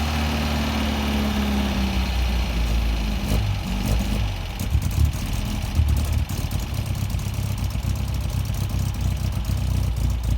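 1971 MGB's 1.8-litre four-cylinder B-series engine running, its revs falling away over the first two seconds and then holding steady. The car has a misfire awaiting a carburettor tuning.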